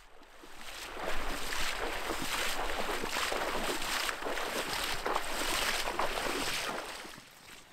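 Shallow seawater splashing and sloshing as people wade through it, towing inflatable pack rafts. The irregular splashing comes in about a second in and fades away near the end.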